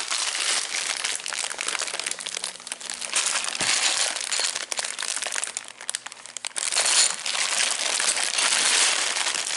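Plastic bag crinkling and rustling continuously as hands work at opening it, the bag that holds the instruction book and sticker sheet.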